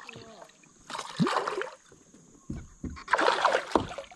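Hooked smallmouth bass thrashing and splashing at the surface beside a kayak, in two bursts, the louder and longer one near the end.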